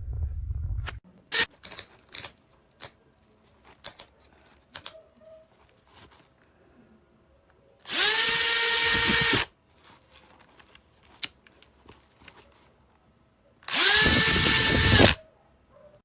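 Milwaukee M18 compact 1/2-inch cordless drill driver run twice, each run about a second and a half: the motor spins up, holds a steady whine, then spins down. Before the runs come several sharp clicks as the tool is handled.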